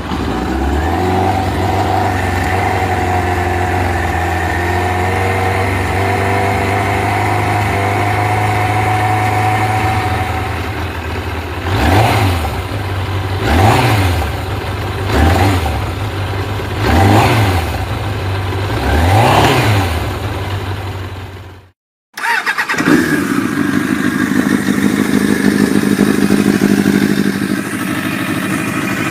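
Suzuki GSX-R sport bike's inline-four engine idling on its stock exhaust, then blipped five times in quick revs. After a sudden cut about 22 s in, another GSX-R engine idles.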